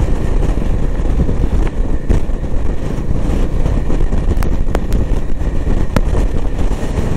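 Motorcycle being ridden, its engine and road noise under a steady low rumble of wind on the microphone, with a few sharp ticks through it.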